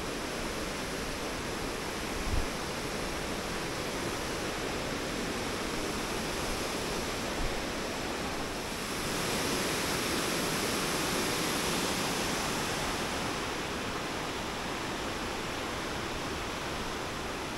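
Yudaki Falls, a long cascade sliding down a rock slope, rushing steadily, a little louder for a few seconds midway. A brief low thump about two seconds in.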